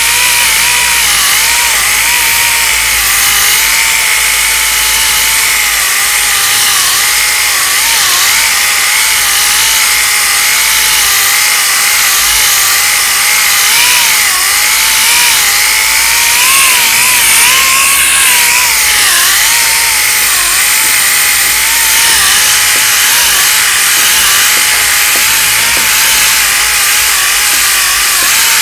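8-inch orbital sander with 40-grit paper running steadily, grinding down cured short-strand fibreglass body filler. Its whine wavers in pitch as it is pressed and eased, rising briefly about two-thirds of the way through.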